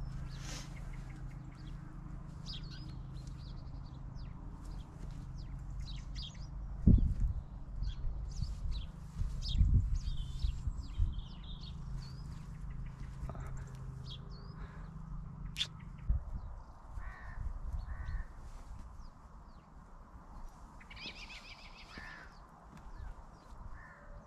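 Birds calling in short, scattered calls, with a denser run of calls a few seconds before the end, over a steady low hum that stops about sixteen seconds in. There are two loud low bumps, about seven and ten seconds in.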